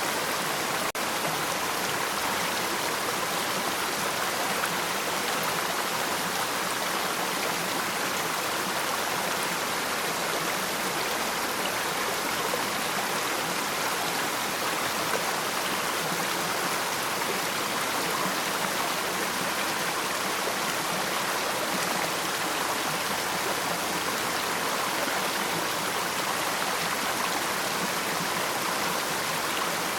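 Waterfall: falling water rushing in a steady, even wash with no change in level.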